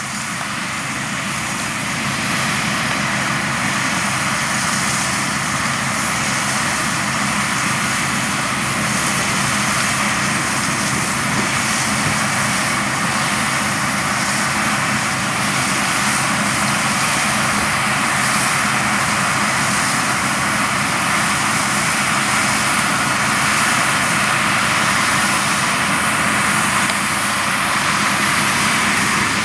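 New Holland CX5090 combine harvester working in a crop of winter barley: a steady engine drone under a continuous mechanical rush, getting a little louder over the first few seconds and then holding even.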